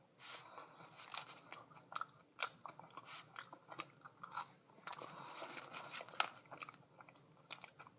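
A person chewing and biting into fries close to the microphone: faint, irregular soft crunches and wet mouth clicks.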